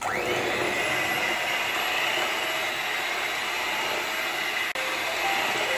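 Electric hand mixer switching on and running steadily in chocolate cake batter, a whirring motor with a high whine that spins up at the start.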